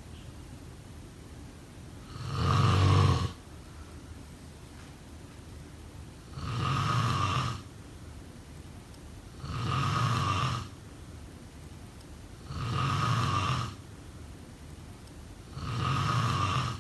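A person snoring in a slow, regular rhythm: five snores about a second long each, roughly every three seconds, with a faint steady hiss between them.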